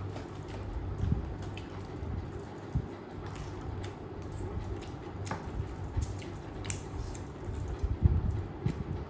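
Chewing and wet mouth sounds of someone eating duck meat close to the microphone, with irregular soft squelches and small clicks.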